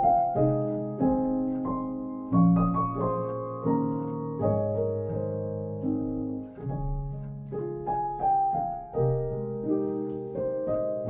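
Background music: a piano playing a slow melody, one or two notes a second, each note struck and then fading away.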